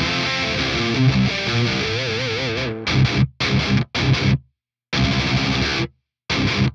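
Distorted electric guitar through a BOSS OD-200's hybrid drive, boosted by its Klon Centaur-style mode into an already dirty amp. Sustained notes with a held vibrato note about two seconds in give way to short chugged chords that cut off abruptly into silence between hits, the onboard noise gate set a little too high.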